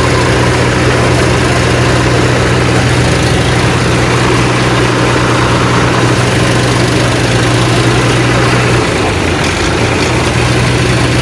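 A heavy engine idling steadily: a constant low hum over a thick hiss of noise, the hum dipping briefly near the end.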